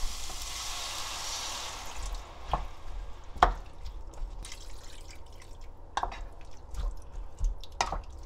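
Water poured from a glass measuring cup into a pan of sautéed potato and dried pollock, a steady hiss for about two seconds. Then come a few sharp knocks as the pan is stirred with a wooden spoon, the loudest about three and a half seconds in.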